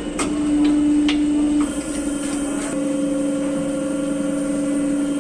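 Factory machine running with a steady hum, with a few sharp clicks in the first second or so. The hum drops a little in level about a second and a half in.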